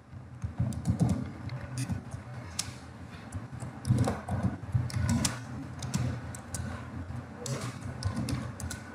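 Typing on a computer keyboard: irregular keystroke clicks over a low steady hum.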